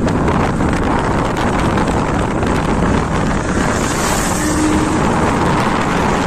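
Benelli 600i motorcycle's inline-four engine running, mixed with heavy wind noise on the microphone; the level stays steady throughout.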